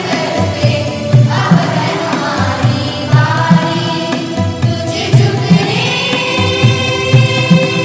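A group of children singing together, accompanied by music with a steady beat of about two pulses a second.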